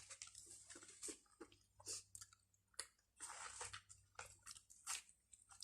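A person chewing food with the mouth close to the microphone: faint, irregular wet smacks and small crunches.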